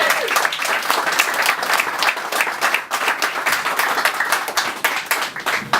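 Audience applauding, many hands clapping steadily until the clapping ends at the close.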